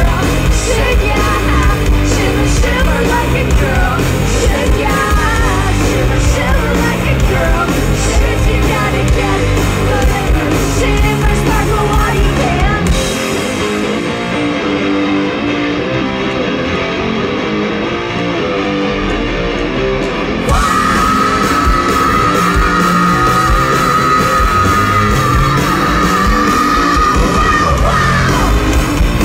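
Live rock band playing through a PA: distorted electric guitars, bass, drums and singing. About halfway through the band drops to a thinner, quieter stretch without the drums' low end and cymbals, then comes back in full with a long held high note ringing over it until just before the end.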